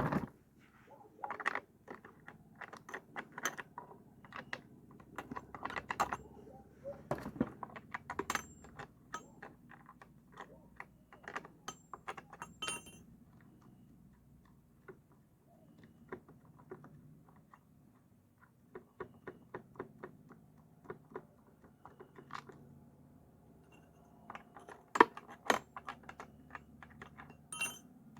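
Irregular clicks and clinks of hand tools and small metal chainsaw parts being handled, with a few sharper knocks about 25 seconds in.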